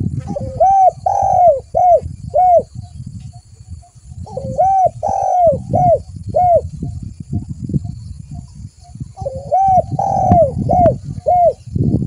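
Spotted dove (tekukur) singing: three phrases of its coo song, each a rising first note followed by about four quick arched coos, with a few seconds' pause between phrases. A low rumble of background noise runs underneath.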